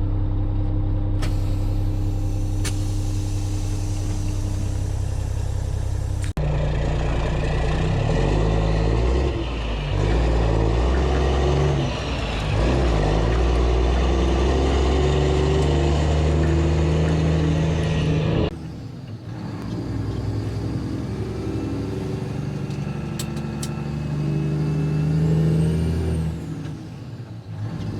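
Mack semi truck's diesel engine running under way, its note stepping up and dropping as the revs change. The sound changes abruptly about 6 seconds in and again about 18 seconds in.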